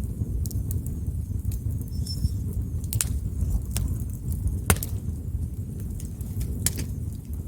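Campfire burning: a steady low rumble of flames with wood crackling and popping throughout. The sharpest pops come about three seconds in, the loudest a little past halfway, and another near the end.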